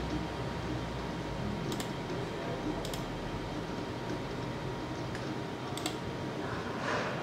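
Computer mouse button clicked three times, each a quick press-and-release click, over a steady room hum. A short soft rustling noise comes near the end.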